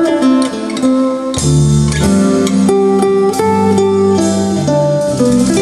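Recorded guitar music, a plucked melody over sustained bass notes, played back through a Luxman LX-360 tube integrated amplifier.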